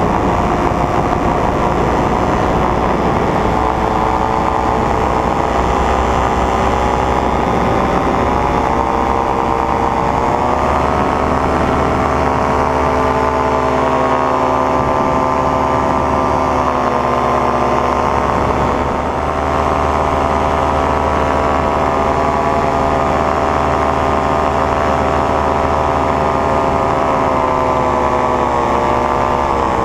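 Paramotor engine and propeller running in flight, a steady loud drone whose pitch rises a couple of times as the engine speeds up and dips briefly near the end.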